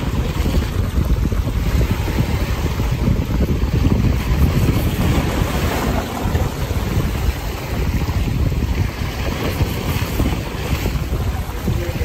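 Wind buffeting the microphone in gusts, over the rush of fast tidal current and choppy water in the inlet.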